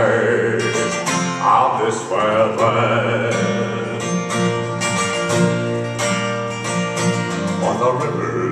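A man's acoustic song: a steadily strummed acoustic guitar with a sung voice rising and falling over it in places.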